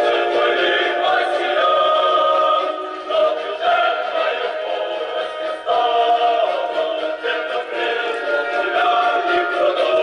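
Music with choir-like singing played through a University Sound CFID 32-T horn loudspeaker driven by a Bogen TPU-100 public-address amplifier. It is loud and has almost no bass.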